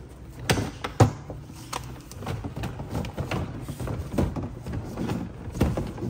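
Knocks, clunks and scraping from a small plastic Haier spin dryer being pulled out by hand from between other appliances, with the loudest knock about a second in.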